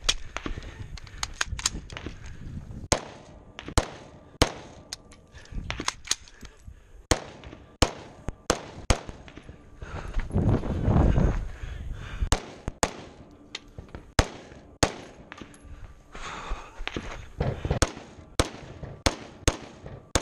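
Close-up gunfire from a scoped AR-style semi-automatic rifle: many single shots fired in quick, irregular strings with short pauses between groups. About ten seconds in there is a longer low rush of noise.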